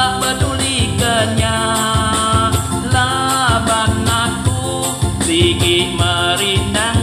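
A song in Iban: a man singing over a band backing with a steady beat.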